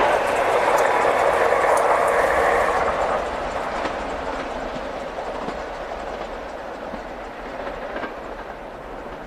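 Train passing and running away into the distance, its wheels clattering over the rail joints, the rolling noise fading steadily.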